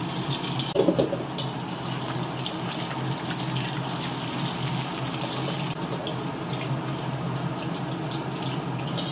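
Pieces of fish shallow-frying in hot oil in a carbon-steel wok: a steady sizzle, with a few taps and scrapes from chopsticks and a metal spatula turning them, the loudest about a second in.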